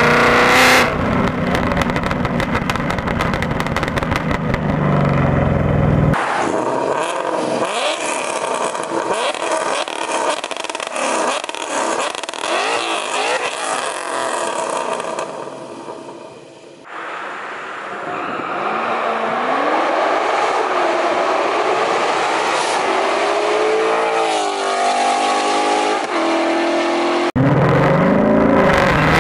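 Ford Mustang GT V8 exhaust through AWE Touring axle-back mufflers, in several cut-together clips of the car revving and accelerating, its pitch rising and falling through the gears. A brief quieter dip comes a little past halfway.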